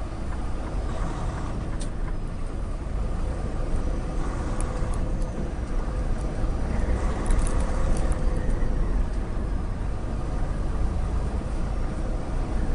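Semi-truck driving, heard from inside the cab: a steady low engine and road drone with faint, steady tones and a few light clicks and rattles.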